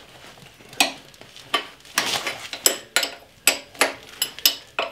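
About a dozen sharp metallic clinks and clicks at irregular intervals: metal parts being handled as the hydraulic reel motor is taken off a John Deere 2500 greens mower's cutting unit.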